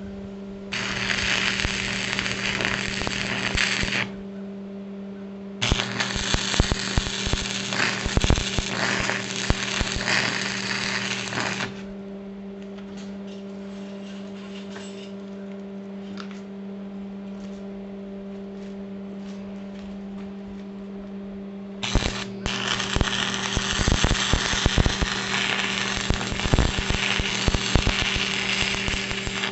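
Wire-feed (MIG) welder tack-welding steel: three runs of arc crackle, about three, six and seven seconds long, with short quiet gaps between. A steady low electrical hum runs underneath.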